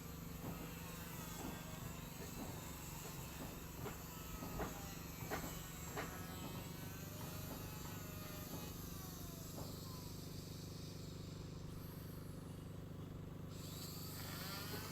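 Boat carpenters' hammer blows on wood, irregular and roughly one a second, thinning out about halfway through, over a steady low hum.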